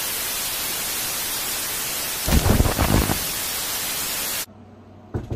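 Analog TV static sound effect: a steady, even hiss, with a louder deep, distorted burst about two seconds in. The hiss cuts off suddenly about four and a half seconds in, leaving quieter room sound and a short knock near the end.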